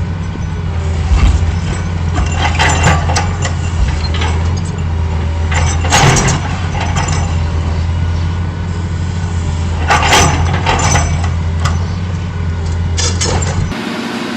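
Heavy diesel machinery running with a steady low drone, broken by several loud metallic clanks and bangs. The sound changes abruptly shortly before the end.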